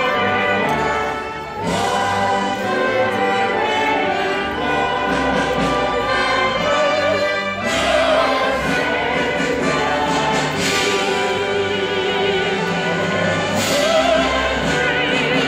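Live symphony orchestra playing with operatic singing over it, held notes sung with a wide vibrato.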